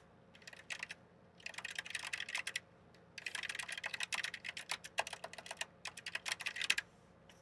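Computer keyboard typing in three quick runs of keystrokes: a short one at the start, another about a second and a half in, and a longer run from about three seconds in.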